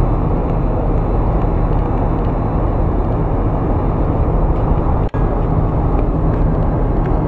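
Loud, steady low rumble of downtown street noise and traffic, cutting out briefly about five seconds in.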